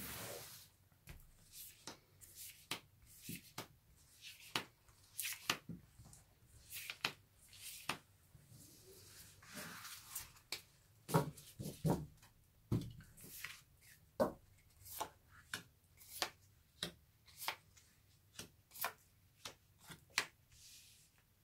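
Tarot cards being handled: a soft swish of cards sliding across the fanned deck, then a scattered series of light card flicks and taps as cards are drawn and laid down one by one.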